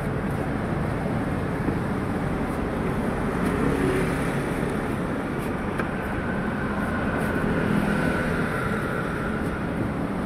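Steady road traffic noise, an even rumble of passing vehicles. A faint higher whine comes in about six seconds in and fades before the end.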